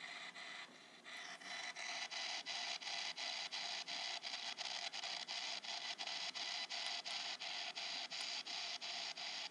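P-SB7 ghost box sweep radio hissing with static as it scans the band, with rapid, evenly spaced clicks, about four a second, as it jumps from station to station. The hiss drops briefly about a second in, then carries on.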